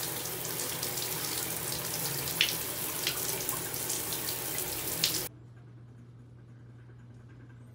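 Tap water running into a bathtub, pouring and splashing over a wrist and strap, with a few small knocks. It cuts off abruptly about five seconds in, leaving a quiet room with a faint steady low hum.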